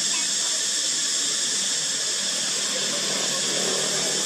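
A loud, steady chorus of cicadas: a continuous high-pitched buzz that holds at one level without a break.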